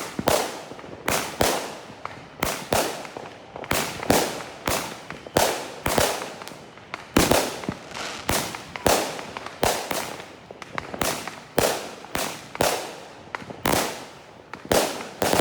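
Fireworks going off one after another: a steady barrage of sharp bangs and cracks, about one to two a second, each with a short echo.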